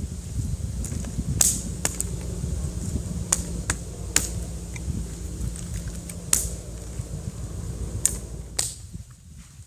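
Wood fire crackling in a small kamado grill stove: irregular sharp pops and snaps a second or so apart over a low steady rumble that drops away near the end.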